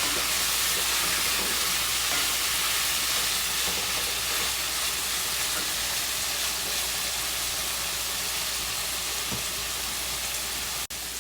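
Food sizzling in hot oil in a frying pan: a steady hiss that eases slightly, breaking off for an instant near the end.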